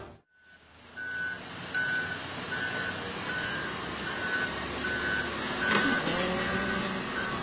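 Heavy truck's reversing alarm beeping at one steady high pitch, about ten short beeps evenly spaced, over a low engine rumble. A sharp knock sounds about six seconds in.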